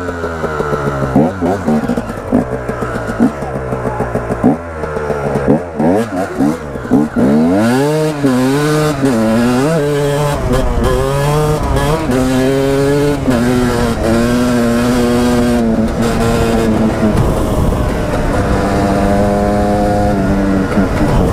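KTM dirt bike engine ridden hard: short, choppy throttle bursts at first, then revving up and dropping back through the gears, and from about halfway holding higher steady notes that step with each shift. Wind rushes over the helmet microphone at speed.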